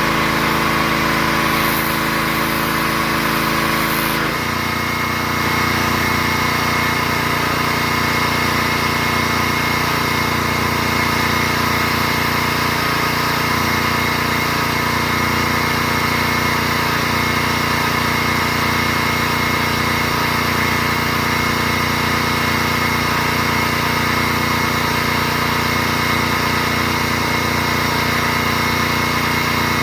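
Gas-engine pressure washer running steadily, its motor droning under a constant hiss. The sound shifts abruptly about four seconds in, then holds steady.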